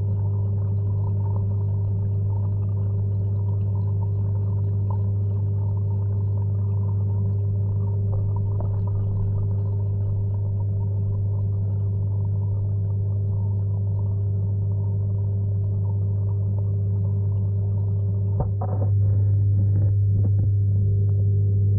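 Steady low hum heard underwater in a fish pond. A couple of knocks come about 18 seconds in, after which the hum is a little louder.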